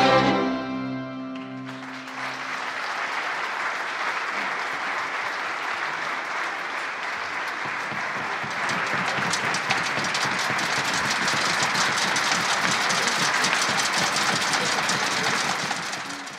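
An orchestra's closing chord rings out and cuts off about a second and a half in, then the audience applauds steadily, growing a little louder before fading out at the end.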